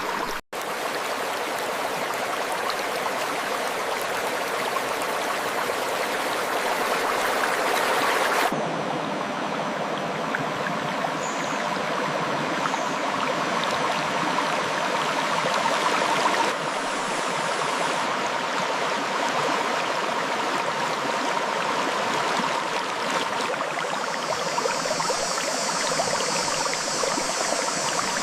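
River water flowing steadily over rocks, a dense even rushing. The sound drops out for a split second just after the start and changes tone abruptly twice, about a third and about halfway through, with a higher hiss added near the end.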